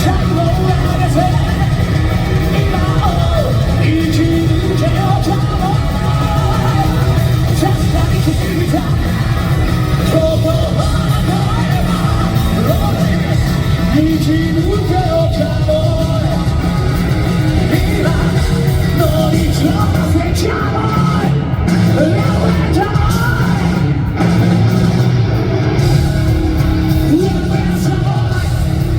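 Live rock band playing loud, with a man's powerful lead vocals sung and shouted over electric guitar and a heavy low end.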